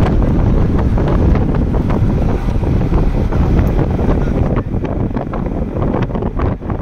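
Wind buffeting the phone's microphone at the side window of a moving car, with the car's road noise underneath; it eases slightly near the end.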